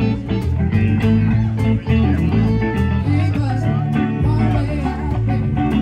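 Live blues-rock band playing: guitar lines with bent notes over bass and drums, at a steady beat.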